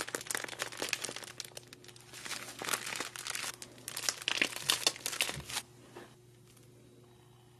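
Thick whipped slime being squeezed out of plastic piping bags: a dense run of crackling and crinkling from the squeezed bags and the extruding slime, which stops about two seconds before the end and leaves quiet room tone.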